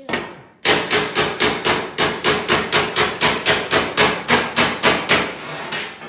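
Hammer rapidly striking a sheet-steel patch panel over the edge of a steel stand, about five ringing metal-on-metal blows a second, bending the panel's edge over by hand. The blows start just under a second in and stop shortly before the end.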